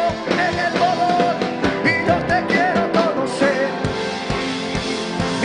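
Background music with a singing voice over instruments and a light beat.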